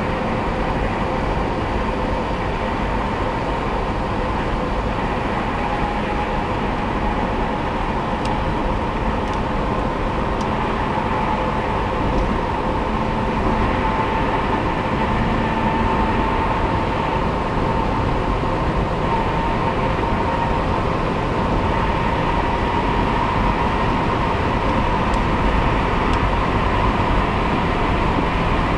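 Steady road and engine noise inside a car cabin at highway speed in a tunnel: a continuous drone of tyres and engine, with a faint whine held at one pitch.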